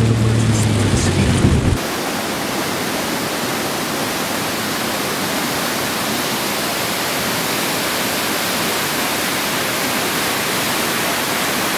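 Fast-running muddy floodwater rushing in a steady, even rush of noise. In the first two seconds, heard from inside a car, a low engine hum and rain ticking on the windshield cut off abruptly.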